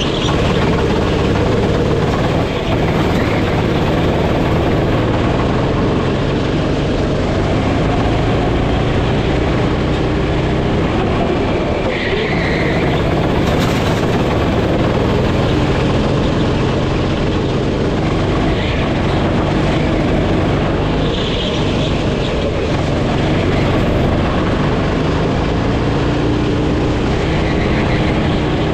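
Sodi go-kart engine running at racing speed, heard from on board the kart. The engine note keeps rising and falling as the kart brakes and accelerates through the corners, over a steady rush of noise.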